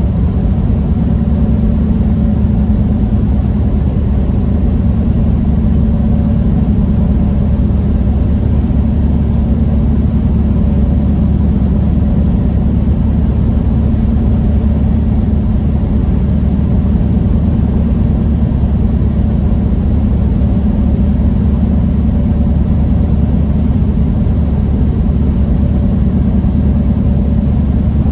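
Steady low drone of a semi-truck's engine and road noise heard inside the cab while cruising, with no change in pitch or level.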